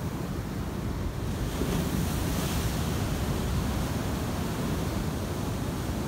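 Ocean surf washing in: whitewater foam hissing, swelling about a second and a half in as a wave breaks and rushes up. Wind on the microphone adds a steady low rumble underneath.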